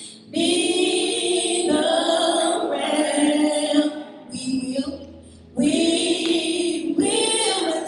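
Voices singing together, a choir or congregation, in two long phrases with a short break about four and a half seconds in.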